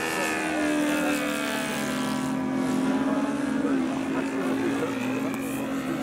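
Model airplane's NGH 38cc two-stroke gasoline engine and propeller running in flight overhead. The pitch drops over the first second as it passes by, then holds steady. The uploader calls the engine a little rough running.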